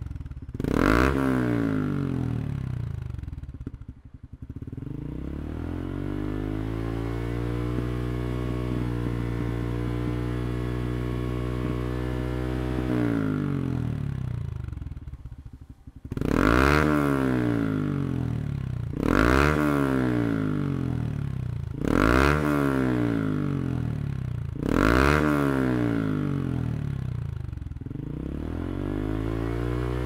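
Honda CT125's air-cooled single-cylinder engine breathing through a Yoshimura GP-Magnum (Type-Up) full exhaust system, revved while stationary. A quick throttle blip about a second in falls back to a steady idle, and a slow rise in revs drops away. Then come four sharp throttle blips about three seconds apart, each settling back, before it returns to idle.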